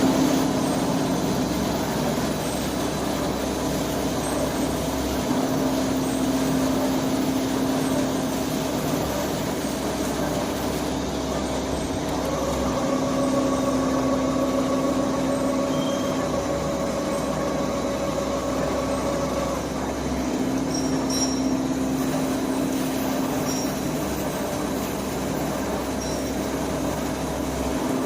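Heavy-duty CNC lathe running a turning cut on metal: a steady machine hum with several held tones. An extra, higher pair of tones comes in about twelve seconds in and stops about seven seconds later.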